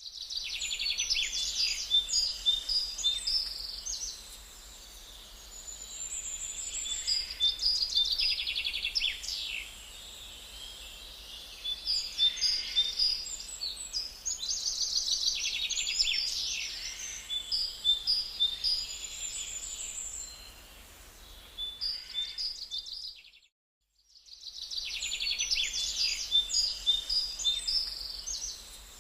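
Birds chirping and singing in busy, overlapping bursts of quick high notes over a faint steady hum, cut off briefly to silence about 23 seconds in before resuming.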